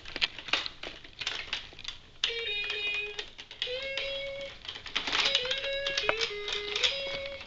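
Plastic toy guitar playing its electronic tune: held notes stepping between a few pitches, several times over. Over it come many rapid clicks, loudest about five to seven seconds in, as the toy's plastic strings and buttons are strummed and pressed.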